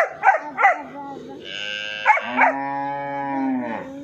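Black puppy barking in quick yaps, three in the first second and two more a little past the middle. Between them comes one long, low, drawn-out call lasting about two and a half seconds.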